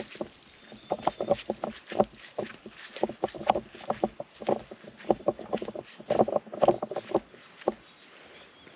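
Brush and undergrowth being cut back by hand to clear a field plot: irregular cutting strokes with snapping and rustling of vegetation. A steady high insect drone runs underneath.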